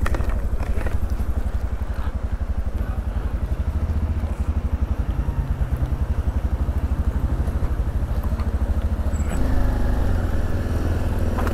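Motorcycle engine running at low speed with steady, even firing pulses, its note rising slightly about nine seconds in.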